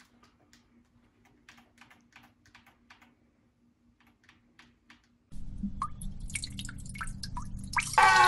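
Faint clicking of game controller buttons, a few presses a second. About five seconds in there is a sudden switch to a louder steady rush of running water with drips, and near the end a loud, held vocal sound begins.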